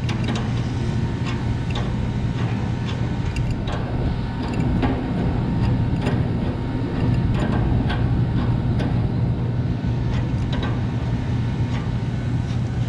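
Steady low machinery hum, with scattered light metallic clicks and ticks from a wrench tightening the fitting of a new refrigeration low pressure switch.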